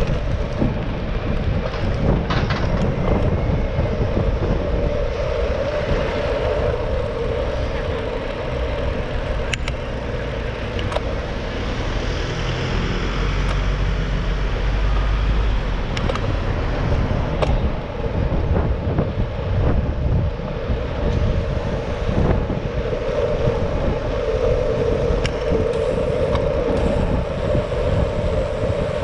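Riding a folding bicycle in city traffic: steady wind noise on the microphone and tyre rumble, with a bus engine running just ahead and a deeper rumble swelling about halfway through. A few short clicks and rattles from the bike over bumps.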